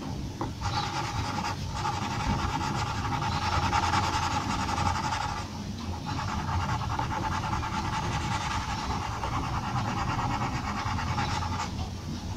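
Graphite pencil scratching on paper in quick, repeated hatching strokes as fur is shaded in, with brief pauses about six seconds in and near the end.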